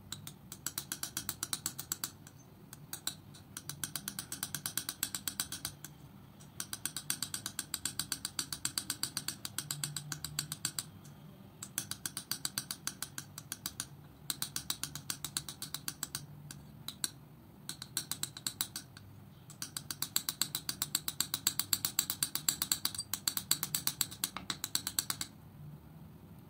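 Metal palette knife mixing thick acrylic paint on a hard surface, making rapid, even clicking taps, about nine a second. The taps come in runs of a few seconds broken by short pauses.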